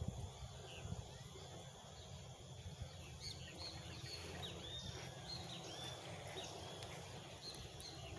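Small birds chirping, many short high calls several a second from about three seconds in, over a steady low rumble of outdoor noise.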